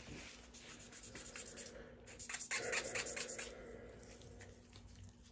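Nylon-bristle cleaning brush scrubbing the slide of a Glock 19 pistol in quick back-and-forth scratching strokes, loudest from about two to three and a half seconds in.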